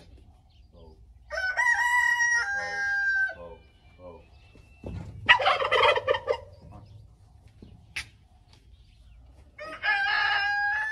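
Rooster crowing: two long crows, about a second in and near the end, with a louder, harsher call around five seconds in.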